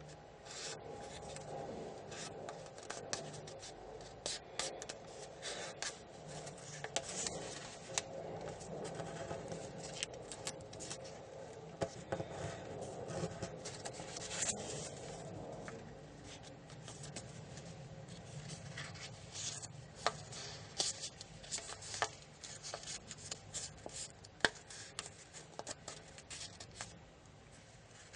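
Origami paper being folded and creased by hand: fingers rubbing along the sheet, with irregular crisp crackles as the folds are pressed and shaped.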